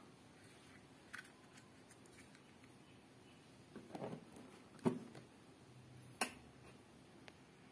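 A three-pin plug pushed into a wall socket with a sharp knock, then about a second and a half later the sharp click of a wall switch being flicked on.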